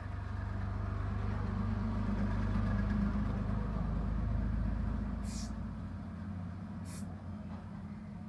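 Low engine rumble that swells and then fades after about five seconds, like a motor vehicle passing. Two short hisses come near the end.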